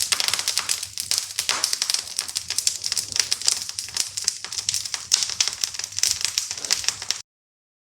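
Wood fire crackling and popping in a fireplace, a dense run of irregular snaps that cuts off suddenly near the end.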